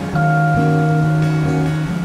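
Instrumental background music: held, gently changing notes with no speech.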